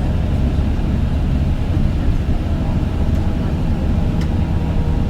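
Steady low rumble of a moving road vehicle, even and unbroken.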